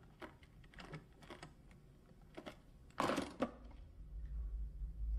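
Small clicks of a briefcase's brass lock being worked by a thumb, then a louder clack about three seconds in as the case is unlatched. A low hum sets in near the end.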